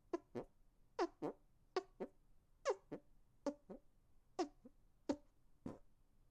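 Hand farts: air squeezed out between cupped hands in a quick string of short, fart-like blurts, mostly in pairs, each dropping in pitch.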